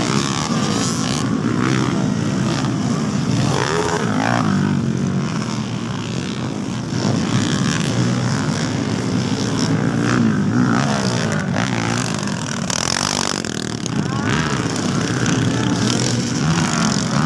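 Motocross dirt bikes racing on the track, their engines revving with the pitch rising and falling.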